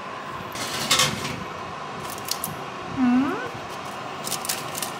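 Crisp rustling and light clicks of oven-dried apple slices and baking paper being handled on an oven tray, in a few short bursts over a steady faint hum.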